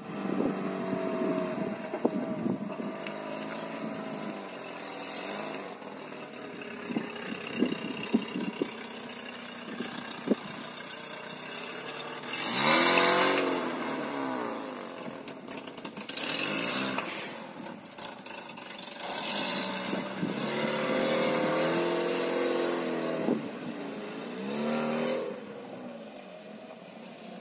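Opel Frontera's engine revving up and down in repeated bursts as the SUV churns through a muddy, water-filled pit. The loudest rev comes about halfway through, with a few sharp clicks in between.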